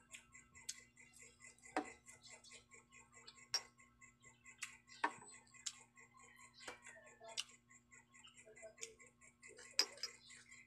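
Close-miked chewing of crispy fried shrimp fritter: a quick run of small crunching clicks and mouth sounds, with a louder crunch now and then, over a faint steady hum.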